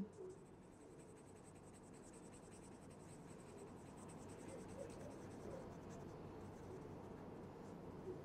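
Black permanent marker scribbling on paper, faint and steady, as a small circle is filled in black.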